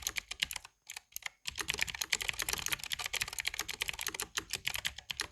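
Fast typing on an EWEADN TK950 typewriter-style mechanical keyboard with clicky blue switches: a dense run of sharp key clicks, with a brief pause about a second in.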